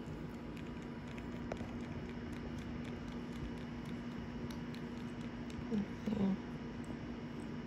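A kitten purring steadily while kneading a fleece blanket, with faint soft clicks; two short low vocal sounds come about six seconds in.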